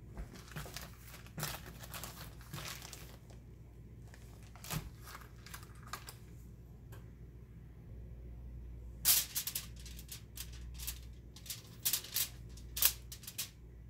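Aluminium foil on a baking sheet crinkling and crackling in irregular bursts as raw bacon strips are handled and laid on it, with a louder run of sharp crackles from about nine seconds in.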